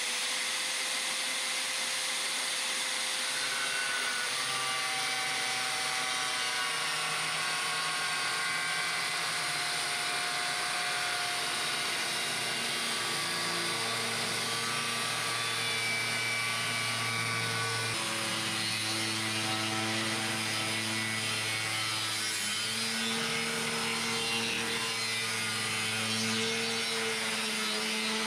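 Angle grinder cutting into a steel plate. A steady, loud whine whose tones shift a few times as the disc bites into the metal.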